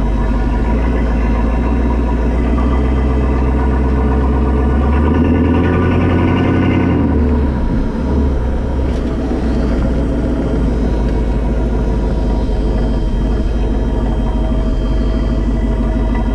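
AMC 327 V8 with Holley Sniper fuel injection running through a Hooker Aero Chamber exhaust, heard from under the car while driving. It pulls harder about four seconds in, eases off about seven seconds in, then runs at a steady low note as the car comes to rest.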